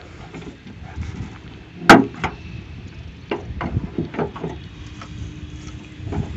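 A car bonnet being raised and propped open: one sharp metallic click about two seconds in, then a few lighter knocks and rattles as the bonnet's prop rod is swung up and set in place.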